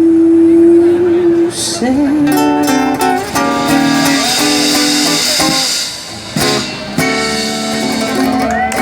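Live acoustic guitar strumming with a woman's wordless singing. A long held note opens the passage, then shorter notes with little sliding pitch turns follow.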